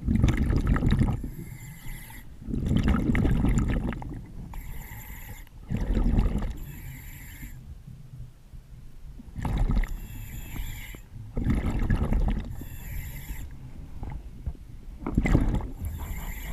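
Diver breathing through an underwater breathing regulator: a hissing inhale with a thin whistle, then a gush of exhaled bubbles. This repeats about six times, one breath every two to three seconds.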